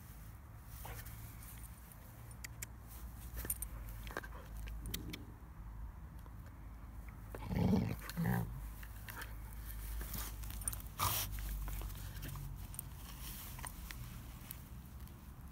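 A dog chewing on a wooden stick: scattered sharp clicks of teeth on wood, with two short low growls about halfway through.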